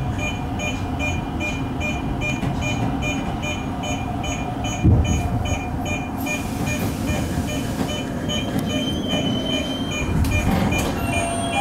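A Tokyo Metro 05 series subway train stands at a platform with a steady low rumble. A rapid, evenly repeating high electronic beeping, about three beeps a second, stops about six seconds in, and there is a single thump about five seconds in.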